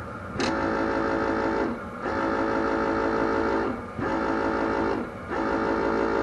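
An electric buzzer sounding in four steady stretches of one to two seconds each, with short breaks between them.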